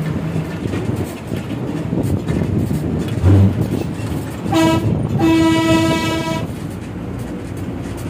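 A vehicle air horn sounds twice, a short blast then a longer one of about a second, over the steady rumble of a bus engine and road noise. A low thump comes a little before the horn.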